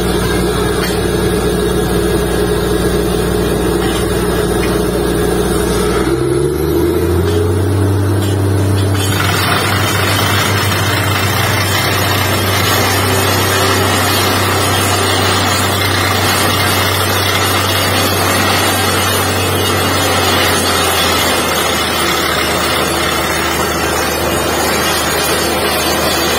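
Truck-mounted borewell drilling rig running with its engine and air compressor droning steadily. About six seconds in, the hum drops to a different pitch, and from about nine seconds a loud hiss of compressed air joins as the air flush blows dust and cuttings out of the bore hole.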